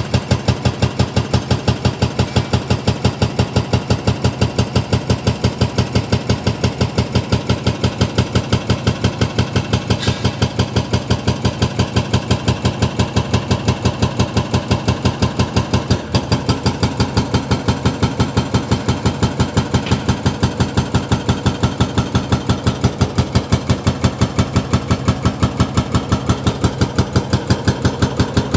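Hydraulic rock breaker on a Volvo EC300DL excavator hammering rock, rapid evenly spaced blows several a second, with the excavator's diesel engine running underneath. The hammering breaks off briefly about halfway through.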